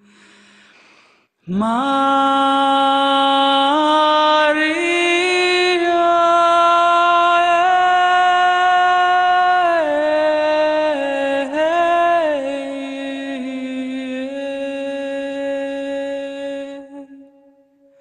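Music: one long held melodic line that starts about a second and a half in, steps up and down in pitch a few times, and fades out near the end.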